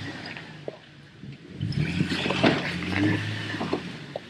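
A 4x4's engine pulling under load as the vehicle crawls over rocks, with knocks and scrapes of rock against the vehicle. Quieter for the first second, then louder for about two seconds.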